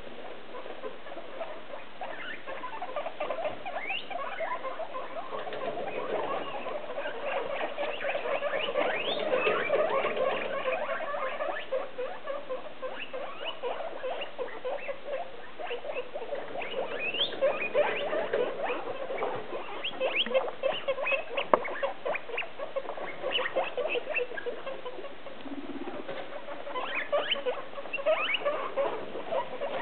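Six guinea pigs calling together in a constant chorus of overlapping squeaks and chatter, with a few shrill rising whistles. This is begging noise from hungry guinea pigs that expect to be fed.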